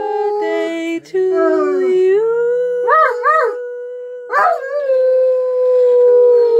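St. Bernard howling in long drawn-out notes that step and waver in pitch, with a long held note in the second half that sinks near the end.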